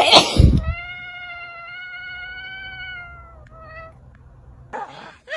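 Domestic cat giving one long, drawn-out meow of about two and a half seconds, then a short second meow. A brief loud noise comes just before the long meow.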